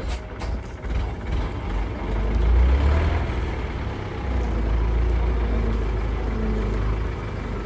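Engine of a flatbed truck loaded with bamboo poles, running as it pulls slowly away up the road: a low rumble that swells a couple of seconds in and then holds steady. A sharp click right at the start.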